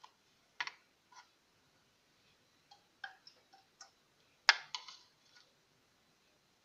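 A spoon clicking and knocking against a wok as lumps of vegetable ghee are put into it: a scatter of short, sharp taps, the loudest about four and a half seconds in.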